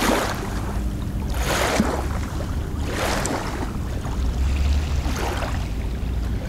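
Water lapping in slow, regular swells, about one every second and a half, over a steady low rumble.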